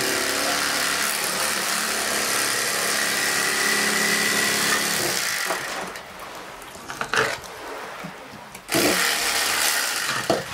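A motor runs steadily with a low hum and then cuts off about five and a half seconds in. After that come a few scattered sharp knocks and a short noisy stretch near the end.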